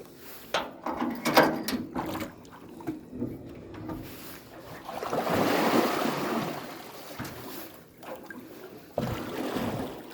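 Water splashing and sloshing around floating dock steps being worked down into place, swelling for a few seconds in the middle, with a few knocks near the start.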